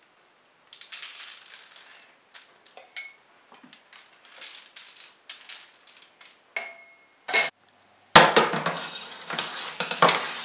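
Sesame seeds scattered from a spoon patter onto a parchment-lined baking tray, with light clicks of the spoon. About eight seconds in, a loud metal scraping and clattering begins as the baking tray is slid into the oven.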